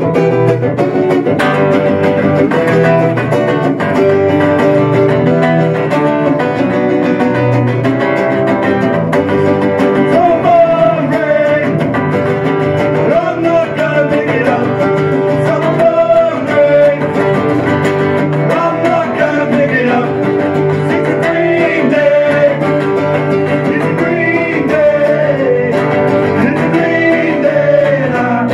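Live two-guitar rock cover: two guitars strummed together under a male lead vocal, played through a PA.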